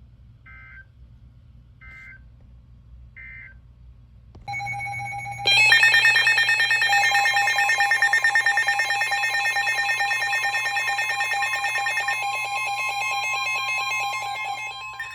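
Three short warbling data bursts, about a second apart: the Emergency Alert System end-of-message tones that close a weather radio warning. A few seconds later a loud, trilling electronic alert alarm from a weather radio receiver sounds for about ten seconds, over the steady 1050 Hz NOAA Weather Radio attention tone, signalling that a new warning is coming.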